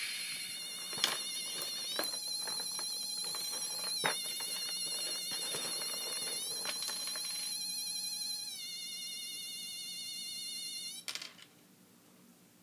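Electronic tones with a wavering pitch, like a ringtone, shifting to a new note every couple of seconds, with a few sharp clicks over them. They cut off suddenly about eleven seconds in.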